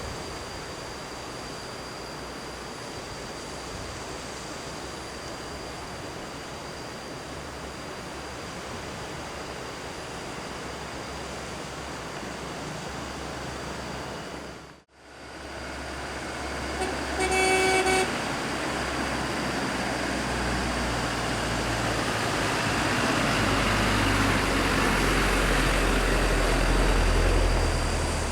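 Wind on the microphone, then, after a brief break, a horn sounds once for about a second. A heavy vehicle's engine then grows steadily louder as it approaches on the mountain road.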